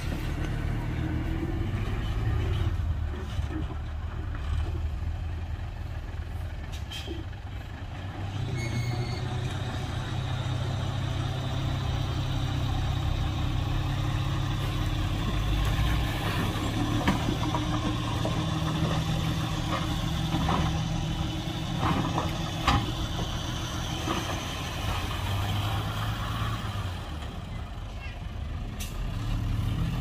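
Heavy diesel engines of a dump truck and bulldozer running under work, the engine note shifting now and then, with a few short metallic knocks.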